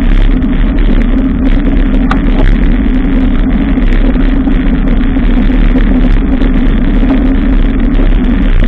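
Loud, steady rumble of wind and road noise picked up by a camera on a moving bicycle.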